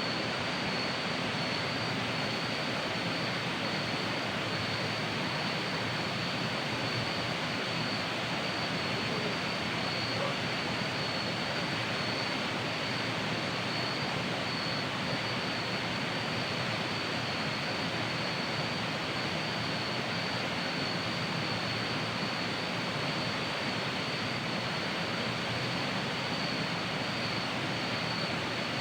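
Steady rushing of a waterfall, with a thin, high, unbroken insect trill over it.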